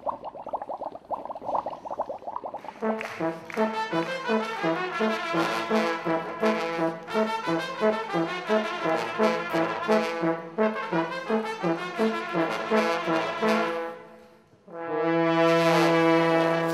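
A brass trio of trumpet, trombone and a low brass horn playing a bouncy tune over a steady repeating beat, then, after a brief break, one long held chord near the end.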